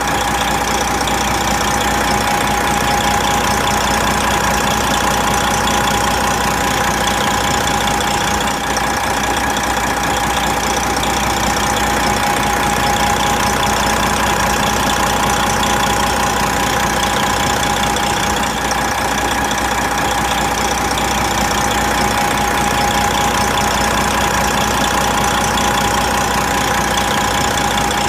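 Big truck's diesel engine idling steadily, its pitch and loudness unchanging throughout.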